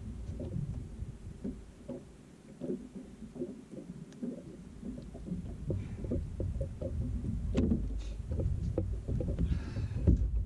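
Wind buffeting the microphone, mixed with small water slaps and irregular knocks against a small fishing boat's hull. The low rumble grows heavier in the second half.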